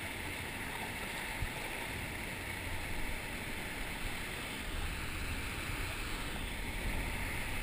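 Sea surf washing and breaking around shore rocks, a steady rush of water, with some low wind rumble on the microphone.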